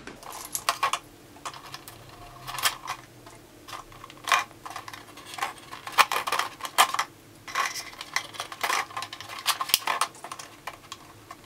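Irregular clicks and crinkles of a thin plastic water bottle and plastic bottle caps being handled as the caps are pushed onto wooden skewer axles.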